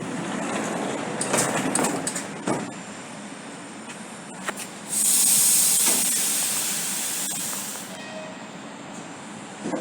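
ED4M electric multiple unit at a platform: a running rumble with a quick run of clanks and knocks in the first couple of seconds. About five seconds in, a loud burst of compressed-air hiss starts suddenly and fades away over about three seconds.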